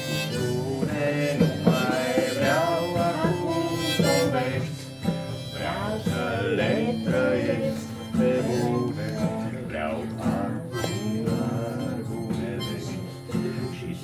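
Live band playing an instrumental break between the verses of a song: a lead melody with bending notes over steady accompanying chords.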